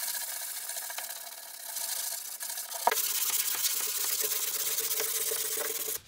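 Hand sanding a painted surface, a steady rasping rub, knocking down high spots before a final coat of paint. The sound changes abruptly about three seconds in and carries on.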